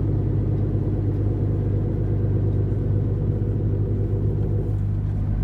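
Scania HGV's diesel engine running steadily under way, a low rumble heard inside the truck cab; near the end the engine note eases off.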